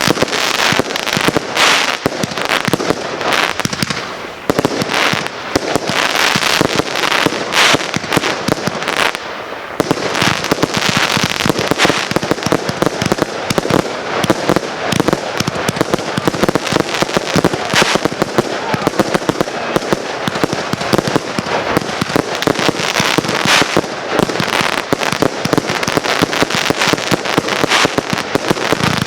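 Consumer firework cakes firing a dense, continuous barrage of launches and crackling bursts, with a brief lull about nine seconds in.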